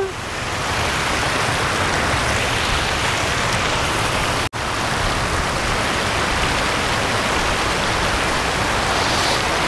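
River water rushing over a low weir, heard up close as a steady, even rush, with a momentary break in the sound about halfway through.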